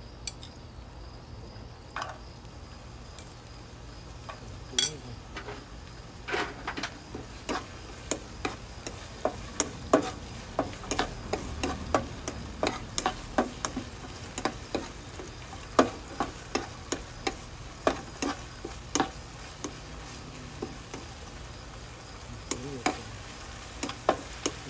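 Food frying in a nonstick wok while a spatula stirs it, with many irregular clicks and scrapes of the spatula against the pan, busiest through the middle stretch.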